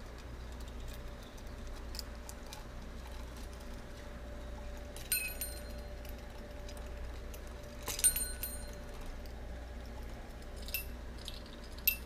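Small metal toy bells on a budgie play stand ringing four times, a few seconds apart, the second ring the loudest, with faint light ticks in between.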